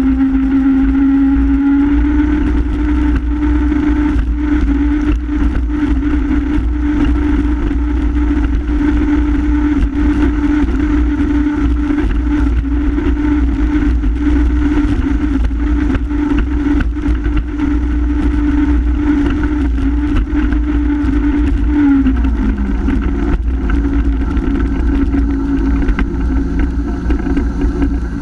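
Honda F-12X AquaTrax jet ski's turbocharged four-cylinder engine running hard at high, steady revs. Its pitch climbs slightly about two seconds in and drops noticeably about 22 seconds in, as the revs come down.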